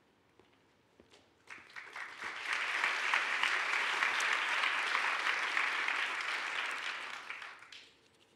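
Theatre audience applauding: a few scattered claps about a second and a half in, swelling into full applause, then dying away near the end.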